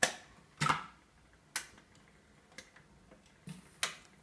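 Automatic record-player deck's changer mechanism clicking and clunking as the tonearm cycles, lifting and swinging out to the record's edge: about six sharp clicks at uneven intervals, the loudest at the very start and a heavier clunk just after.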